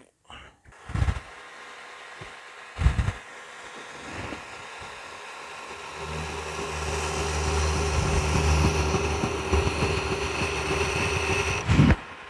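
Two clunks, then a 2x72 belt grinder starts up, its motor hum rising for a couple of seconds and then running steadily. It cuts off with a thump near the end.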